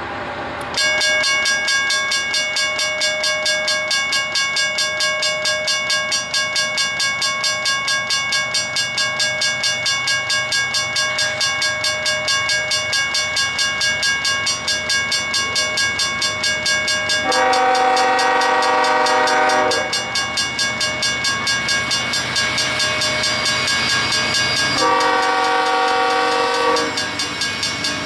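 Railroad crossing bells ring in rapid, even strokes, starting about a second in. Over them a diesel locomotive's air horn sounds two long blasts, the second one about 25 s in, for the grade crossing.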